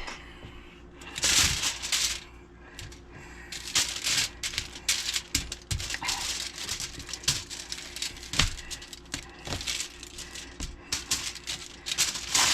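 Irregular taps, clicks and rustling of hands handling things in a kitchen, several a second, over a faint steady hum.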